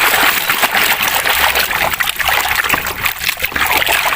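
Running water splashing and trickling over a muddy toy as it is washed clean.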